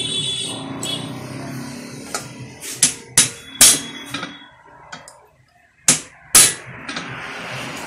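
Screwdriver and small steel screws clicking against a Hero Honda 100 cc engine's oil pump and the aluminium crankcase as the pump is screwed down: a handful of sharp, separate metallic clicks, bunched in the middle and again near the end. A background engine hum fades out over the first two seconds.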